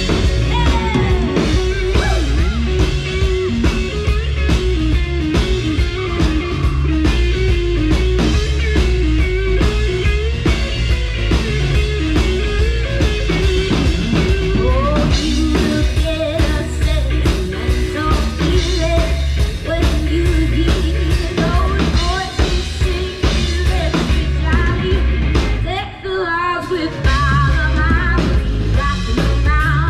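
Amplified live rock band playing: electric guitar, drum kit and a singer, with a steady beat. The bass and drums drop out briefly near the end before the band comes back in.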